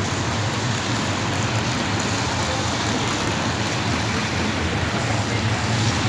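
Steady city traffic on a rain-wet street: engines running over a low rumble, with a continuous hiss of tyres on wet asphalt and rain.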